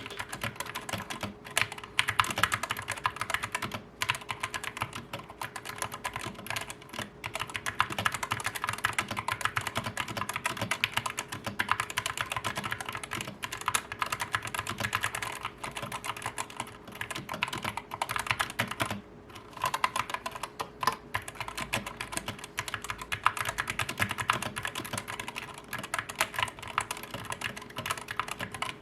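Typing sound test on a GEEK GK61 60% mechanical keyboard with Gateron Yellow linear switches: a dense, fast run of key clacks with a few short pauses.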